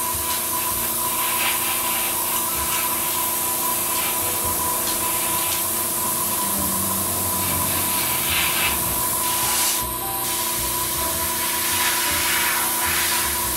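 Paasche H airbrush hissing as it sprays thinned ink, the hiss swelling in short spurts as the trigger is worked, over the steady hum of the air compressor feeding it.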